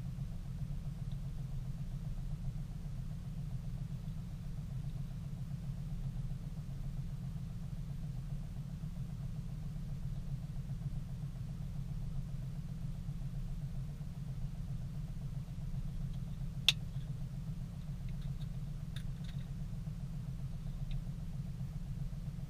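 Car engine idling steadily, heard from inside the stopped vehicle's cabin. A single sharp click comes about two-thirds of the way through.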